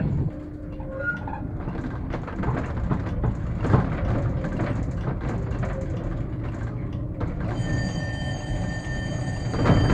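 Tram running over street track, a steady rumble with irregular clicks and knocks as the wheels pass rail joints and crossings. About three-quarters of the way in, a steady high whine of several tones starts and holds.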